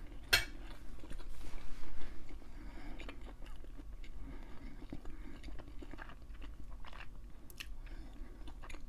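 A person chewing and biting a mouthful of hibachi food. There is a sharp click a fraction of a second in, and the chewing is loudest about one to two seconds in.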